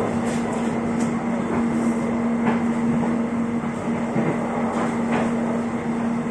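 Electric airport rail link train running, heard from inside the carriage: a steady rumble with a constant hum and a few light clicks.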